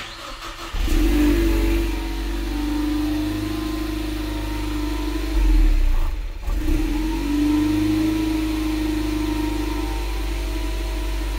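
A 2.3L EcoBoost Mustang's turbocharged four-cylinder cold-starting, heard at the tailpipe through the stock exhaust behind a new catted downpipe. It catches less than a second in, flares loudest for about a second, then settles into a steady fast idle, briefly louder again around the middle; it still sounds pretty stock.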